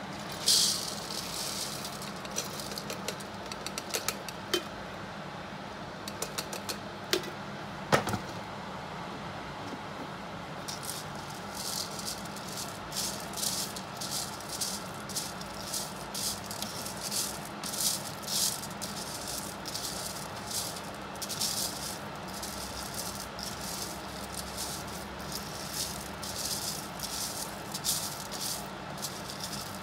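Freshly roasted coffee beans poured into a YJINGRUI coffee bean cooler with a short rush, then stirred with a wooden spoon in the steel mesh bowl, rattling in repeated bursts from about ten seconds in. Under it the cooler's fan hums steadily, drawing air through the beans to cool them, and a few sharp knocks come in the first eight seconds.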